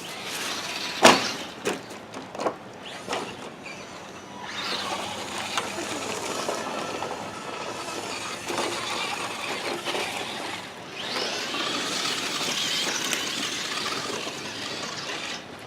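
Radio-controlled trucks driving over rough ground: a few sharp knocks in the first three seconds, the loudest about a second in, then a steady hiss of tyres and drivetrain that swells and dips.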